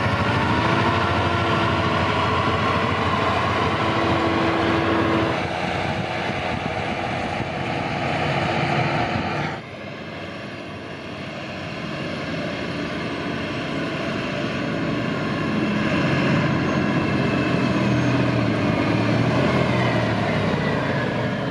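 Tractor engines running: a John Deere tractor working the field with a seeding implement, then, after a cut, a Claas tractor on a road growing louder as it approaches.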